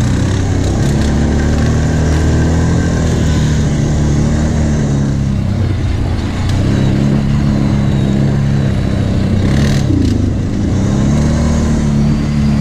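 Kawasaki Brute Force 750 ATV V-twin engine running close by under changing throttle as the quad is ridden over sandy bumps. The engine note eases off about halfway through and picks up again, rising near the end.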